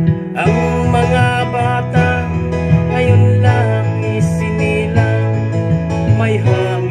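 A man singing a cover of a Filipino folk song over acoustic guitar accompaniment, the voice coming in about half a second in.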